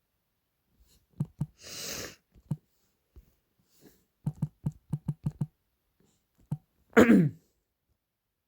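Choppy, clipped fragments of audio playing from video-editing software: a few short stuttering pulses, a brief hiss about two seconds in, a quick run of about six pulses midway, and a loud swoop falling in pitch near the end.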